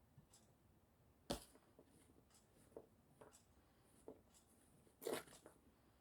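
Knife slicing eggplant on a cutting board: faint, scattered taps and knocks. The loudest knock comes about a second in, and another cluster comes near the end.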